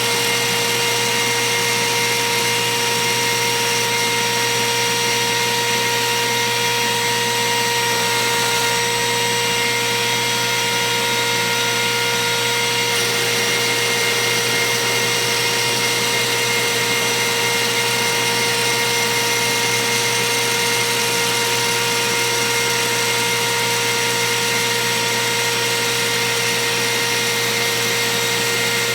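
Router motor in a router table running steadily at speed, a constant whine over a hiss, driving a 1/8-inch single O-flute down-spiral bit used for milling acrylic.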